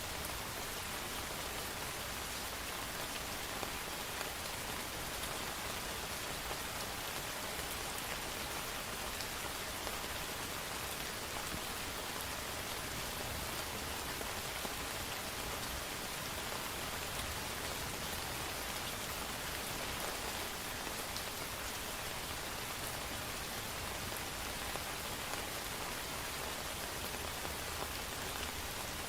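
Steady rain falling and pattering on hard surfaces, an even hiss with scattered drop ticks and no change in strength.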